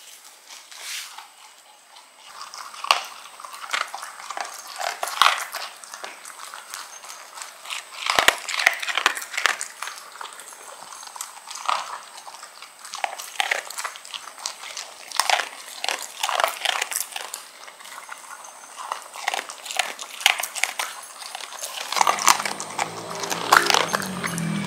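A dog crunching and chewing dry kibble from a bowl: a quick, irregular run of sharp crunches. Soft music comes in about three seconds before the end.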